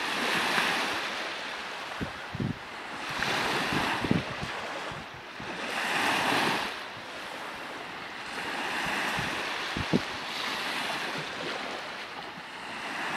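Small sea waves breaking and washing up a sandy shore, the surf swelling and fading every few seconds. A few brief thumps sound along the way.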